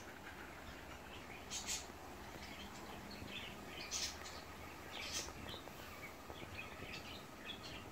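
Small birds chirping: scattered short, high chirps, a few of them louder, over a faint steady low hum.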